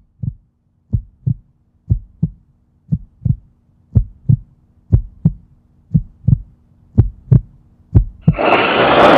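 Heartbeat sound effect: paired low thumps, about one beat a second, growing steadily louder over a faint steady hum. A little past eight seconds in, a loud rushing noise bursts in and holds.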